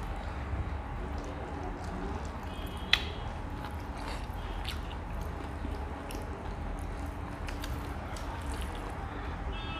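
Mukbang eating sounds: chewing and small wet clicks and squishes of fingers mixing rice and food on a wooden plate, over a steady low rumble, with one sharper click about three seconds in.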